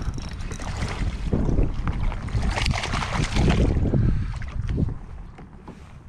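Wind buffeting the microphone with water splashing and sloshing around a kayak. It is busiest through the middle and eases off near the end.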